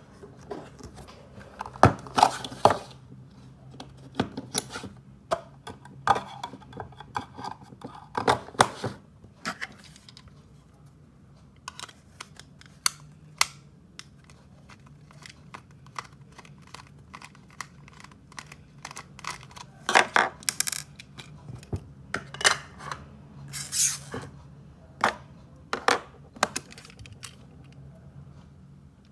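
Handling noise from a small diecast model car and its surroundings: irregular light clicks, taps and short scrapes. They come in busy clusters at the start and again from about twenty seconds in, with a sparser stretch in between.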